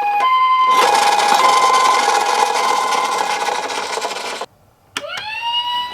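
Toy ambulance minicar's electronic two-tone siren sounding, then giving way less than a second in to a loud, steady rattling as the toy's small wheels run down the slope. After a short silence and a click, a siren tone rises in pitch and holds steady near the end.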